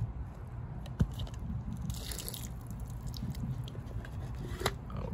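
Spent cardboard firework boxes being handled and set down on wet pavement: a sharp knock about a second in, a short rustle around two seconds, and another knock near the end, over a low rumble.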